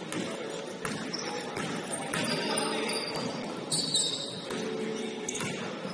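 Basketball game in a gym: scattered ball bounces and thuds ringing in the large hall, a brief high squeak about four seconds in, and faint voices underneath.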